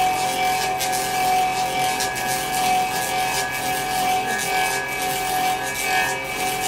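Clog-copying lathe running: a steady motor whine under a continuous rasping, shaving noise as its cutter carves the outside shape of a wooden shoe, tracing a model the way a key is duplicated.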